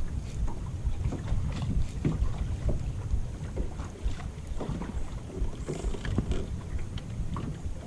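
Wind buffeting the microphone with a low rumble, with small waves slapping here and there against the hull of a small boat on choppy water.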